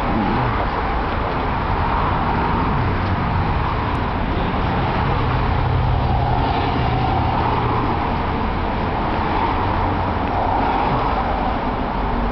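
City road traffic: cars and buses passing on the street, a continuous rush of engines and tyres that swells and fades as vehicles go by. A low engine hum stands out for several seconds in the middle.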